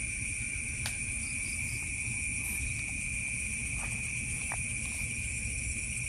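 Night insects, like crickets, trilling in an unbroken high drone, with a low rumble beneath and a few faint clicks.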